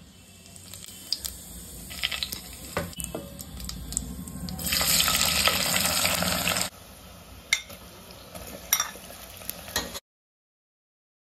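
Cumin seeds and bay leaf sizzling in hot oil in a stainless steel pot, then a loud burst of sizzling for about two seconds as sliced onions go into the oil. After that the frying settles to a quieter sizzle with a few sharp clicks, and the sound cuts out completely about a second before the end.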